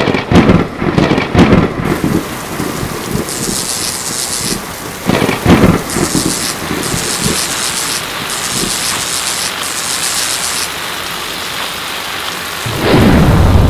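Thunderstorm sound effect: steady rain hiss with loud thunderclaps in the first two seconds and again about five seconds in, then a loud, deep rumble of thunder starting near the end.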